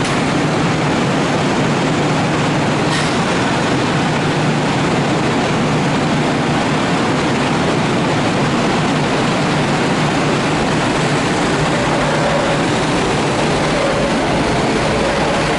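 Kintetsu 2000 series electric train pulling out of the platform and gathering speed past, with a steady rumble of wheels and running gear. A faint motor whine comes up near the end.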